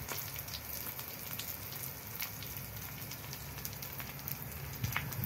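Salmon fillet and brussels sprouts sizzling gently in oil in a nonstick pan, an even hiss with scattered small pops and crackles, the fish nearly cooked.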